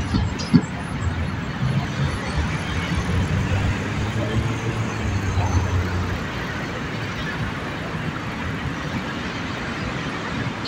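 City street traffic noise as a low-floor tram rolls past, with a low hum that swells in the middle and fades. A sharp knock comes about half a second in.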